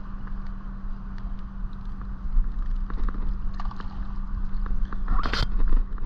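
Steady low rumble and hum with scattered small clicks while a hooked bass is fought beside a kayak; about five seconds in, a short splash as the fish is pulled to the surface at the kayak's side.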